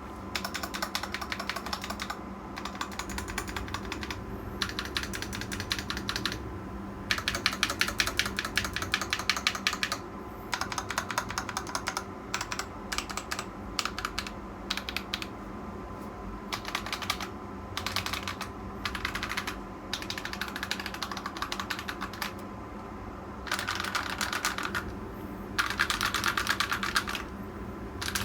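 Typing on a Tecware Veil 87 mechanical keyboard fitted with Akko Cream Blue v3 tactile switches: fast runs of key clacks in bursts of a few seconds, with short pauses between them.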